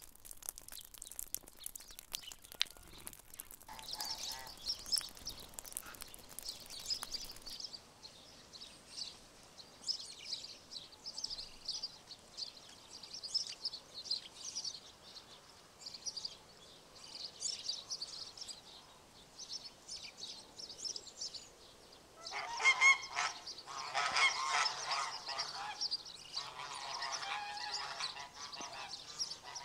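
Small birds chirping in short, repeated calls, after a few seconds of rapid crackling ticks at the start. About two-thirds of the way in, a larger bird breaks in with loud, harsh, honking calls that keep on.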